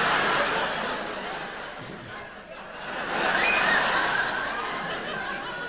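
Studio audience laughing: a loud wave of laughter that dies down about two seconds in and swells up again about three seconds in.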